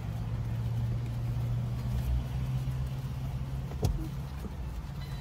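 Steady low hum of a car idling, heard inside its cabin, with a single sharp click about four seconds in.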